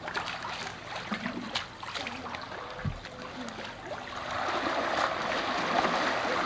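Water splashing and sloshing as a child is pulled through it, with scattered small splashes, getting louder and steadier about four seconds in.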